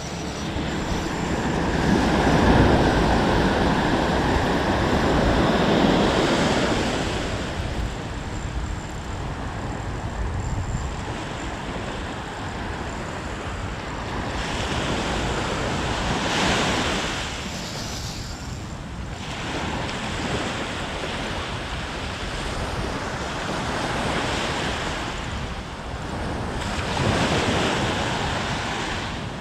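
Sea surf: small waves washing onto the shore in several slow surges, the longest in the first few seconds, with wind on the microphone.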